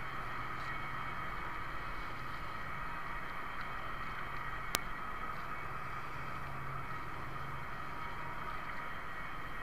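A steady mechanical hum with several held tones, over wind and water noise on open sea, and a single sharp click about halfway through.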